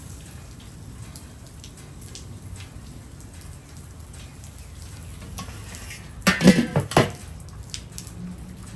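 Chicken sizzling on a charcoal grill, a steady crackling hiss with scattered small ticks, broken about six seconds in by a brief loud clatter of cookware.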